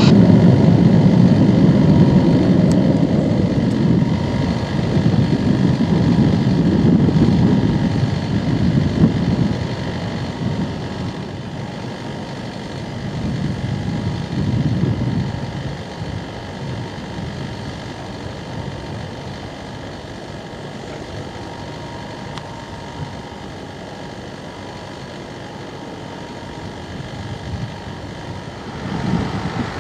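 Four Kuznetsov NK-86 turbofan engines of an Ilyushin Il-80 (Il-86VKP) rumbling as the jet climbs away. The rumble is loud at first and fades over about ten seconds, swells briefly about fourteen seconds in, then dies down to a faint distant rumble.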